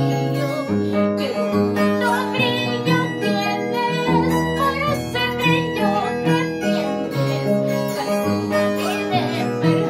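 A woman singing over a backing track of plucked string instruments with a steady bass line.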